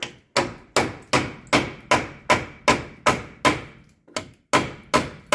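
Hammer striking steel about two and a half times a second, each blow sharp with a short metallic ring, with a brief pause near the end: hammering from the back to drive out a seized front hub on a Land Rover Discovery 2.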